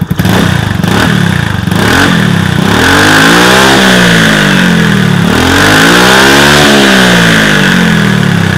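Yamaha Mio Sporty scooter's single-cylinder four-stroke engine revved through a Sun Racing Cobra aftermarket exhaust with its silencer insert fitted. There are a few quick throttle blips, then two longer revs that climb and fall back. The engine drops back toward idle near the end.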